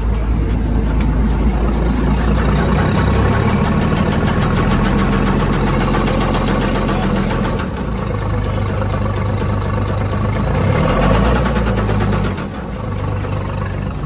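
Komatsu WA180 wheel loader's diesel engine running with a rapid, even knocking from a failed connecting-rod bearing, the engine finished in the owner's view. It gets briefly louder about eleven seconds in, then eases off about a second later.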